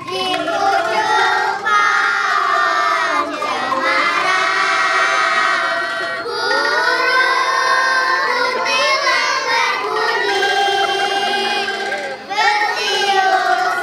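Children's choir singing a song together with angklung accompaniment, phrase by phrase with short breaks between lines.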